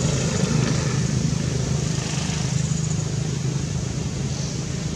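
Steady low rumble of outdoor background noise, like an engine running nearby, with no distinct calls or knocks.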